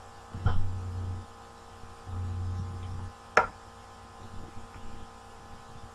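Low electrical mains hum on the recording, swelling louder twice in the first half, with one sharp click about three and a half seconds in.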